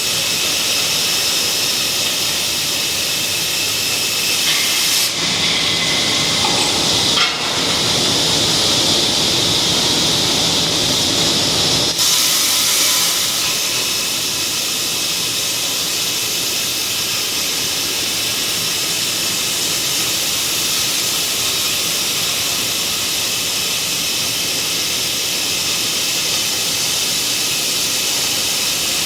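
CNC cutting torch hissing steadily as it cuts a workpiece turning on a rotary axis. From about five to twelve seconds in the hiss grows a little louder and deeper, then goes back to its earlier tone.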